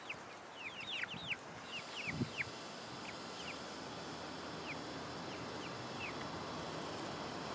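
Chicks peeping in short falling chirps for the first few seconds. A faint, steady high whine from the automatic coop door's motor starts about two seconds in, after a low thud, as it winches the aluminium sliding door open.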